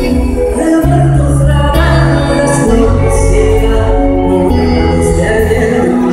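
Loud live pop band music with a lead singer, recorded from within the concert audience: a heavy bass line changing notes about every second under the sung melody.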